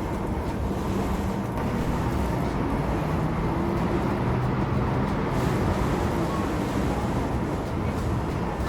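Steady low engine rumble of a heavy vehicle running, with no clear knocks or breaks.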